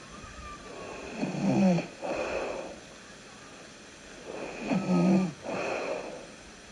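A person snoring in sleep: two breaths, each a loud low snore on the breath in followed by a softer breath out, about three and a half seconds apart.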